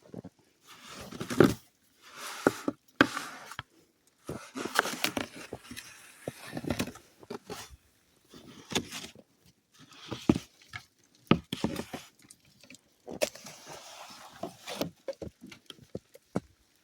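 Snow crunching and scraping in irregular bursts, mixed with sharp clicks; no engine is running.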